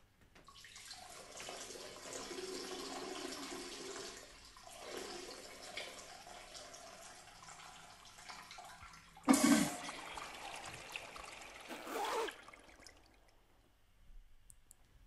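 Toilet flushing and water running, with a loud sudden knock about nine seconds in and another short burst of noise around twelve seconds.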